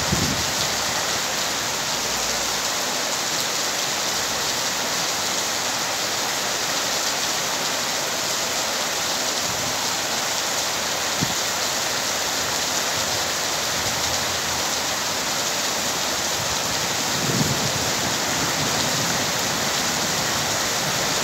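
Heavy rain pouring steadily onto a lawn and garden trees, an even hiss that keeps up without letup.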